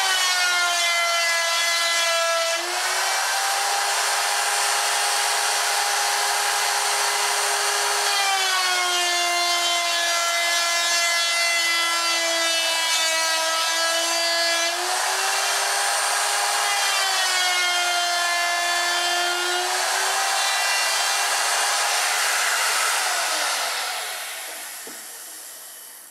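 Electric router with a half-inch mortising bit running at full speed and cutting away wood. Its whine drops in pitch each time the bit bites into the wood and rises again as it eases off, several times over. Near the end it is switched off and winds down.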